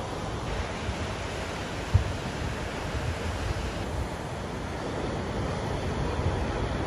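Ocean surf breaking and washing over rocks, a steady roar of white water, with wind buffeting the microphone as a flickering low rumble. A short thump about two seconds in.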